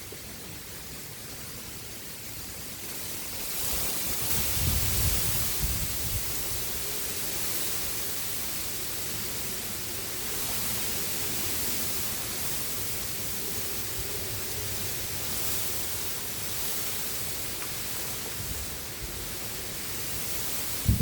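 Strong wind blowing across the microphone over a steady rushing hiss; the wind picks up about three and a half seconds in, with low rumbling gusts for the next couple of seconds.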